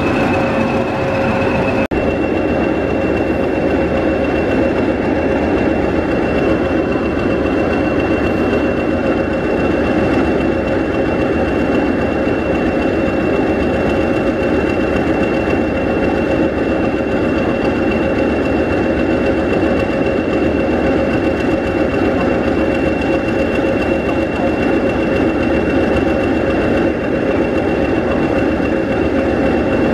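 Class 20 diesel locomotive's English Electric eight-cylinder engine idling steadily while standing, with a steady high-pitched whistle over the engine note.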